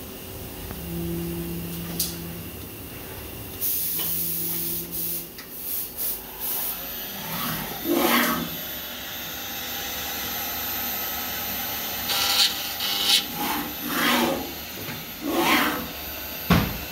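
Mac 140/50 CNC profile processing centre at work: two short humming axis moves early on, a burst of compressed-air hiss about four seconds in, then a run of swelling whooshes from the moving head and clamps, and a sharp clunk near the end.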